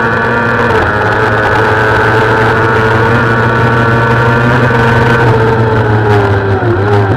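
Kawasaki ZX-6R's inline-four engine held at high revs at racing speed, its pitch slowly sagging. Near the end the pitch dips briefly twice and recovers.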